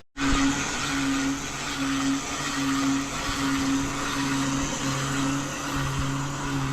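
Engine-driven pressure washer on a flatbed rig running steadily, its low hum swelling and fading at a regular beat.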